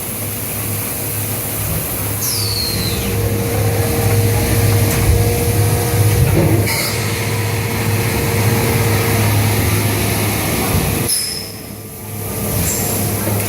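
Automatic pressure-vacuum forming machine running while forming ABS panels: a steady low hum with air hiss, a few short high squeals that fall in pitch, and a brief drop in the noise about eleven seconds in before it starts up again.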